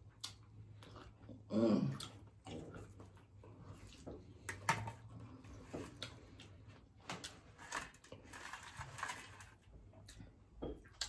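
Close-miked eating: chewing and mouth smacks on fried catfish, with scattered small clicks and crackles, and a brief hummed "mm" about two seconds in.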